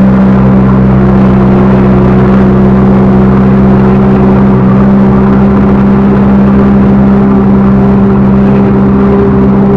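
Backhoe loader's diesel engine running steadily at high revs, loud and close, with a higher tone that sets in about a second in and creeps slightly upward.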